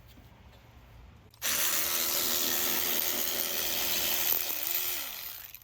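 A handheld power tool runs at full speed for about four seconds, a steady whine under a loud hiss, then winds down near the end as the trigger is released, undoing a fastener on the front suspension.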